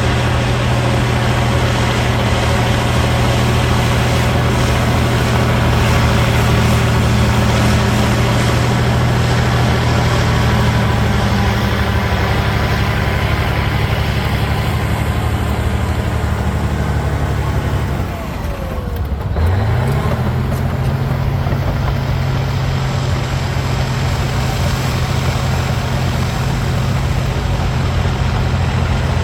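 Cat D9L bulldozer's V12 diesel engine running hard and steady. About eighteen seconds in the engine note drops for a moment, then climbs back up in pitch and settles into steady running again.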